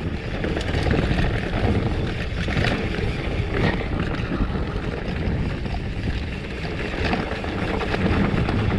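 Wind buffeting the microphone of a handlebar-mounted action camera, with mountain-bike tyres rumbling over a dirt track on a fast descent and occasional light knocks from the bike.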